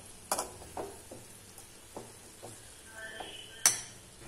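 Metal slotted spatula stirring and scraping chopped banana-flower stir-fry around a frying pan: a string of short scrapes and taps about every half second, with one louder clink of the spatula against the pan a little before the end.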